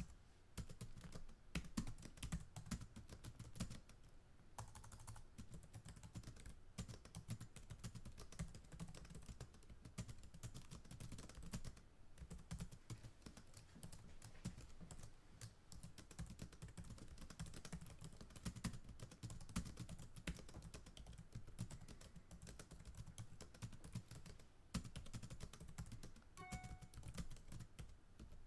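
Computer keyboard typing: a continuous run of quick key clicks. It is a background-noise track mixed over the video, not typing done on screen.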